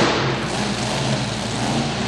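Monster truck engine running at low revs under a steady rush of noise, just after the truck lands a jump.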